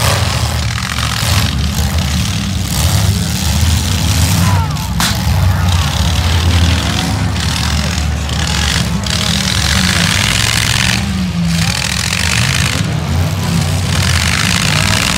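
Demolition derby cars' engines running on the track, a heavy low rumble that rises and falls, with spectators' voices mixed in. A single sharp crack about five seconds in.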